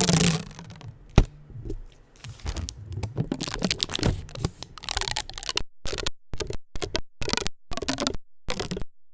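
Adhesive tape crackling and crinkling right against a microphone, fast and aggressive, with a sharp crack about a second in. From about halfway through it breaks into a run of short quick bursts of tape noise with brief silences between them.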